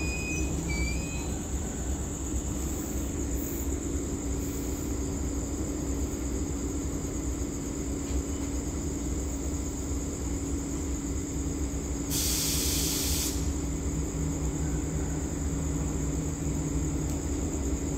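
A train of cement tank wagons standing at the station with its diesel locomotive running, a steady low hum throughout. A faint wheel squeal dies away in the first second, and about twelve seconds in compressed air hisses out in a burst lasting about a second.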